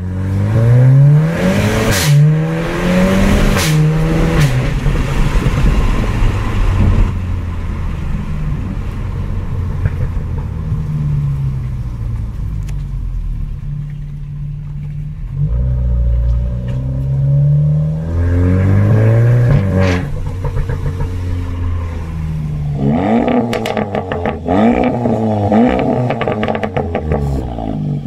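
Seat Leon Cupra 300's turbocharged 2.0-litre four-cylinder on a Milltek Sport exhaust, accelerating hard several times. The engine note climbs and drops back at each gear change, with a steadier, quieter stretch in the middle. Sharp exhaust crackles and pops come with the gear changes early on and during the last hard pull near the end.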